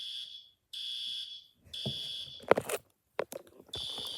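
Fire alarm sounder in a hotel room sounding high-pitched beeps in the temporal-three evacuation pattern: three blasts, a pause, then the cycle starting again. A few sharp knocks or clatter fall in the pause and are louder than the alarm.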